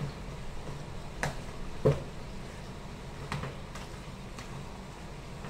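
Spoon knocking and scraping against a plastic tub while chicken pieces are mixed through their marinade: a few sharp clicks, the loudest a little before two seconds in, over a low steady hum.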